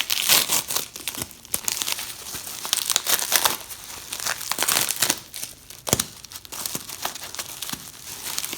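Packaging wrap being crinkled, crumpled and pulled off by hand in irregular crackling bursts while a 3D-printed figure piece is unwrapped, with one sharper snap about six seconds in.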